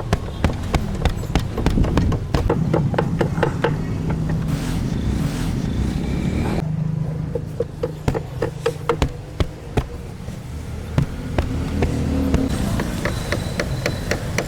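Hand work on a sofa frame: many sharp, irregular taps and clicks, some in quick runs, over a steady low rumble.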